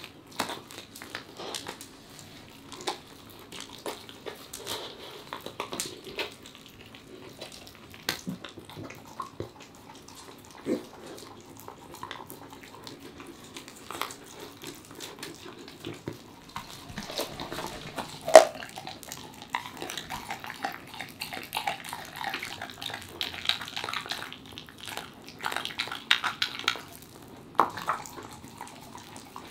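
Welsh corgi eating raw chicken: wet licking, smacking and chewing, with small irregular clicks of teeth on the meat. The chewing is busier in the second half, with one sharp louder click a little past the middle.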